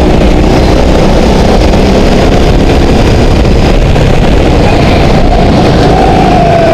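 Go-kart engine running loud at speed through the corners, its pitch dipping slightly near the end.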